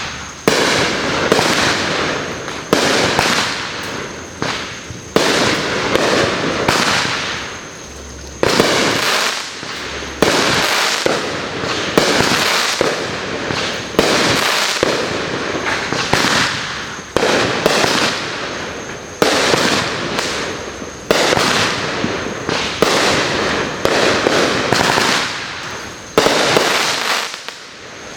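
Backyard consumer fireworks going off in rapid succession: a sharp bang about every second, each trailing off in a fading crackle and hiss, for the whole stretch.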